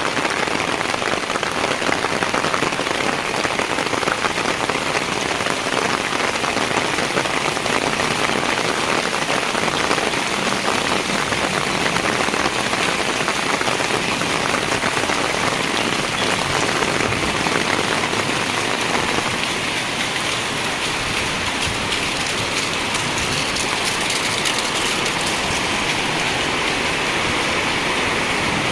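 Heavy rain pouring down, a dense, steady hiss of many close drops. From about two-thirds of the way through, the sound turns smoother and steadier, like rushing water.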